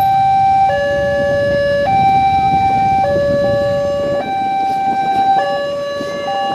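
Electronic level-crossing warning alarm sounding with the barriers down, a higher and a lower tone switching back and forth about every second. Idling motorbikes and cars rumble low underneath.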